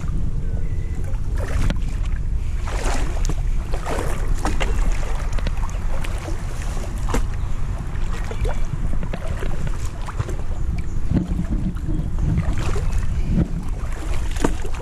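Wind buffeting the microphone in a steady low rumble, with irregular knocks and water sounds every second or two from the small boat on the river.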